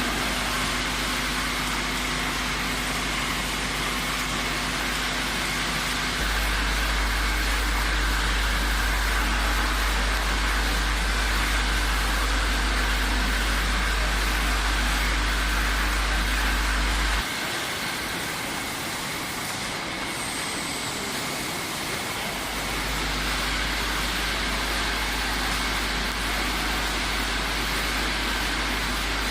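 Bottle labelling machine running: a steady mechanical drone with a deep hum underneath that steps louder about six seconds in, drops out around seventeen seconds and comes back about twenty-two seconds in.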